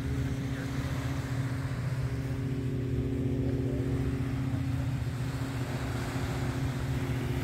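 A motorcycle engine idling steadily at an even pitch, with no revving.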